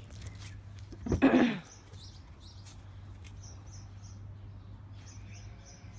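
Small birds chirping faintly in short runs of a few high notes, with one brief, loud, rough sound about a second in.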